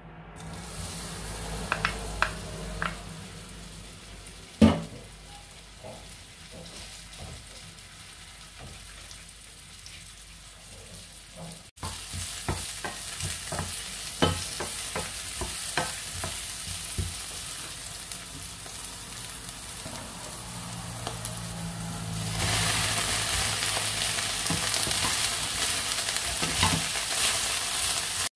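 Sliced onion sizzling in hot oil in a stainless steel frying pan, stirred with a wooden spoon that knocks against the pan now and then, once loudly about five seconds in. The sizzle grows clearly louder about two-thirds of the way through as water spinach stems go into the pan.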